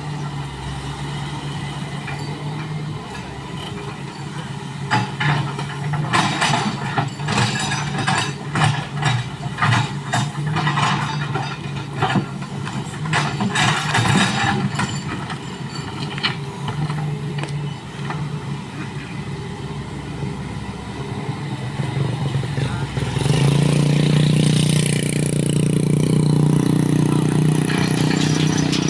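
Excavator's diesel engine running steadily, with a run of sharp knocks and scrapes through the middle. About three-quarters of the way through, the engine note grows louder and fuller as it works harder.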